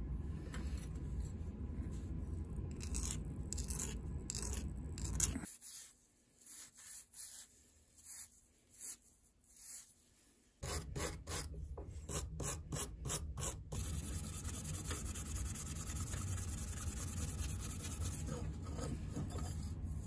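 Scotch-Brite abrasive pad scrubbing small metal hand-plane parts by hand, such as the knurled brass adjusting knob. The strokes turn quick and rhythmic around the middle, then settle into a steadier scrub, over a low hum that drops out for several seconds.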